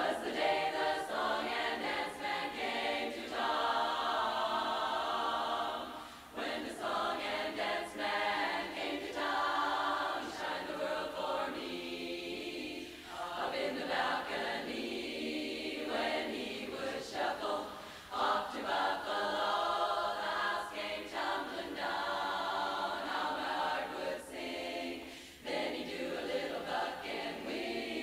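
Women's barbershop chorus singing a cappella in close harmony, in phrases with short pauses for breath between them.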